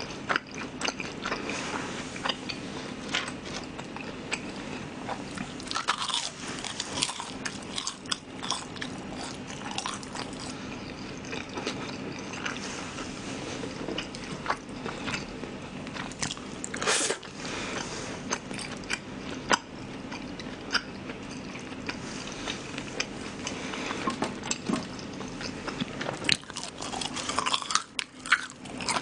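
Close-miked chewing and biting of battered fried shrimp in sweet-and-sour sauce, a steady run of wet crunching and mouth clicks. The glutinous-rice batter has gone less crisp than usual in the damp weather.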